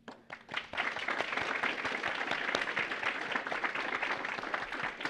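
An audience applauding, many hands clapping together. It swells up within the first second and then holds steady.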